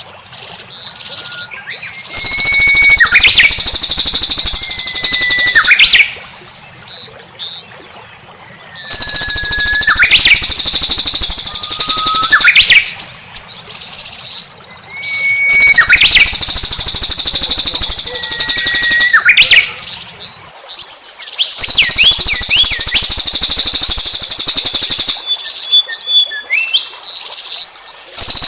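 Small songbird's rapid, high-pitched buzzy 'tembakan' song, the kind played as a lure for small birds: four long bursts of about four seconds each, alternating with short whistled notes that slide sharply upward.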